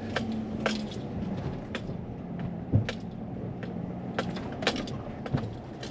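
A vehicle engine running steadily in four-wheel drive while maneuvering a load into place. Scattered short clicks and knocks sound over it.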